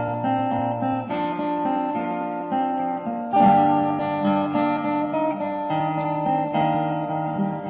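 Acoustic guitar being fingerpicked: a melody of plucked notes over held bass notes, with a louder chord about three seconds in.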